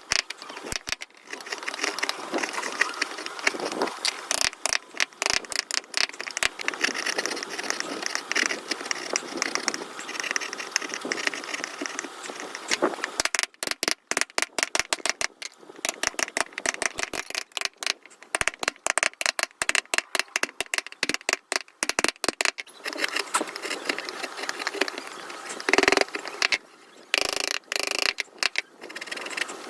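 Hand carving in wood: a carving chisel scraping and cutting, with many sharp irregular clicks and taps.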